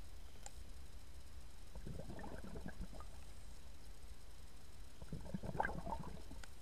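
Scuba diver's exhaled air bubbling out of the regulator in two bursts, about two seconds in and again about five seconds in, over a steady low underwater rumble.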